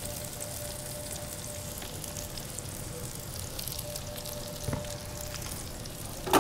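Mushrooms and shallots sizzling and crackling steadily in a stainless skillet over a high gas flame, with honey just added so it starts to caramelize. A soft knock comes a little before five seconds in, and right at the end there is a sudden loud metal clatter as the pan is taken up off the burner grate.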